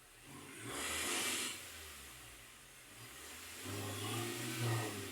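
A 2022 MG5's four-cylinder petrol engine revved twice while standing still, a brief rev about a second in and a second one near four seconds. Each rev carries a rushing, hissy intake and exhaust sound over a low engine note.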